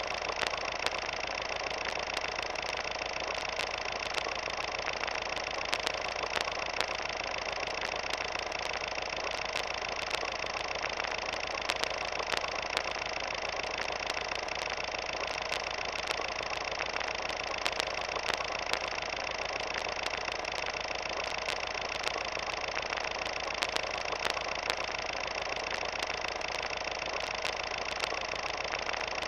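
Steady mechanical whirring hum made of several held tones, with frequent short clicks throughout.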